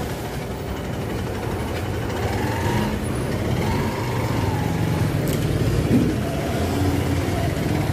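A motor vehicle's engine running steadily, with road and traffic noise.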